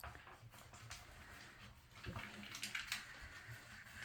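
Dog nosing at a treat puzzle toy: faint sniffing and a few light clicks and knocks of the toy's pieces, about two to three seconds in.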